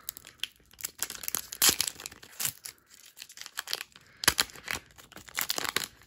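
Foil Pokémon booster pack wrapper being torn open along its top strip, crinkling and crackling in irregular bursts, loudest about a second and a half in and again just past four seconds.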